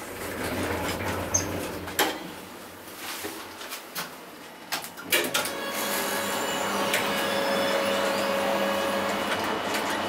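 KONE elevator car stopping, with several sharp mechanical clicks. From about five seconds in its doors open, with a steady whine and the noise from outside growing louder.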